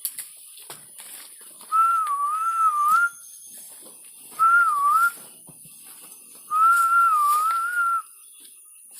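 A person whistling a slow, wavering tune in three phrases, each a single pure tone that dips and rises, over a steady high hiss.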